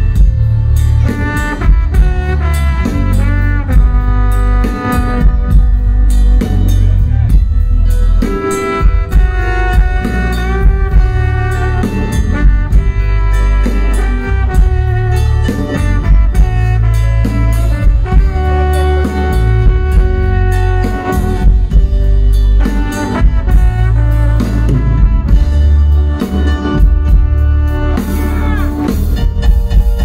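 Live band playing an instrumental passage: saxophones and brass carrying the melody over a drum kit and a heavy bass line.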